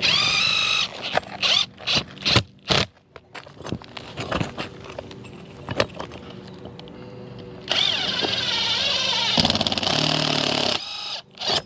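Cordless drill driving screws through a steel roof anchor into the roof deck: a short run of the motor spinning up at the start, a few clicks and taps as the next screw is set, then a longer run of about three seconds near the end as another screw is driven home.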